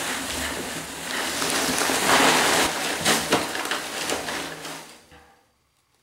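Dense, loud crackling and rustling noise with sharp crackles throughout, swelling about two seconds in, then fading out to silence a little after five seconds.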